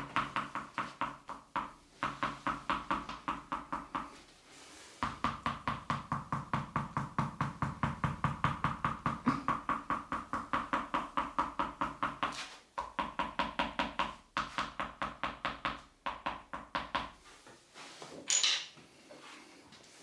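Electric percussion massager running in bouts of fast, even pulses, about six a second, over a steady motor tone. It stops briefly several times and stops for good near the end.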